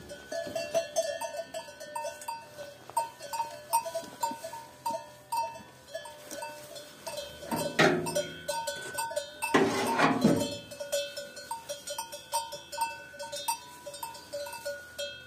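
A bell on a cow's collar clanking in a quick, uneven rhythm as the cattle move about. Two louder livestock calls come about halfway through.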